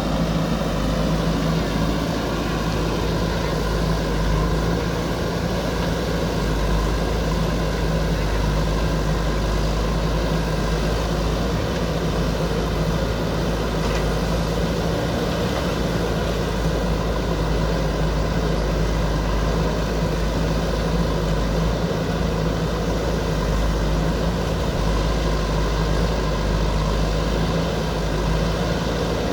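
JCB backhoe loader's diesel engine running steadily at an even pitch, with no clear revving or knocks.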